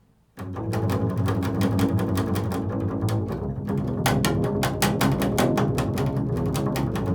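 Improvised instrumental music starts suddenly about a third of a second in: sustained low tones under a dense run of rapid, sharp note attacks, kept up steadily.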